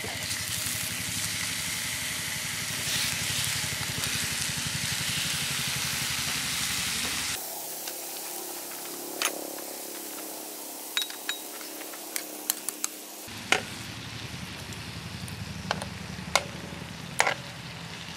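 Smoked back bacon rashers sizzling in a hot frying pan. The sizzle is a steady hiss that drops quieter about seven seconds in, then goes on with scattered sharp pops and spits.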